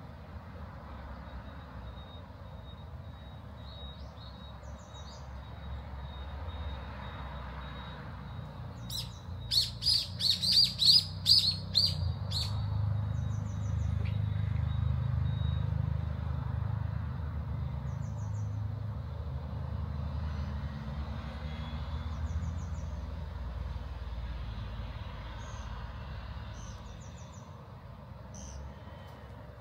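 A bird singing about nine seconds in: a quick run of about ten loud, evenly spaced high notes lasting about three seconds. It sounds over a steady low traffic rumble that swells and fades midway, with faint high chirps every few seconds.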